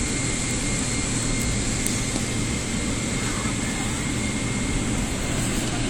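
Steady cabin noise inside a Boeing 777-300 airliner: the even rush of jet engines and airflow, with a faint steady whine.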